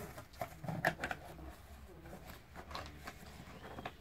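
A Jack Russell terrier's claws tapping on a wooden floor as it moves around and noses into a cardboard box, in scattered light clicks and taps with one sharper knock about a second in.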